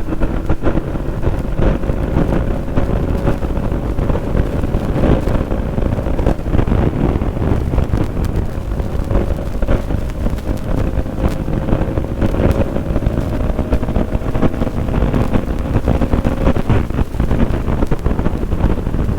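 Heavy wind buffeting on the microphone at speed, with a Bajaj Pulsar NS200's single-cylinder engine held at high revs underneath, its whine climbing slowly in pitch as the bike gains speed.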